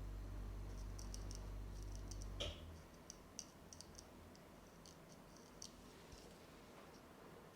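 Barber's scissors snipping through a beard: light, crisp clicks at an irregular pace, a few a second. A low steady hum cuts off with a louder click about two and a half seconds in.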